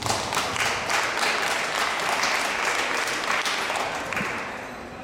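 Spectators clapping for a gymnast's rings routine. The applause starts suddenly and fades out over about four seconds.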